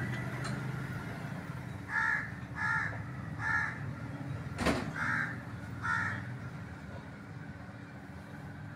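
A bird calling five times in short, harsh, crow-like caws, starting about two seconds in and spaced under a second apart, with a single sharp knock in between.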